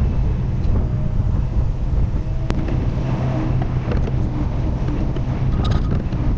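Excavator diesel engine running steadily under working load, with wind on the microphone; a single sharp click about two and a half seconds in.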